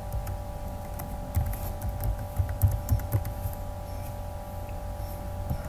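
Computer keyboard keys clicking in a scattered run of keystrokes as a word is typed, over a steady electrical hum.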